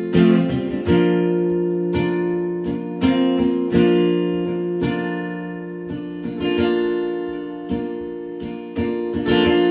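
Acoustic guitar strumming chords in an instrumental passage of a song, each stroke ringing out before the next, about one or two strokes a second.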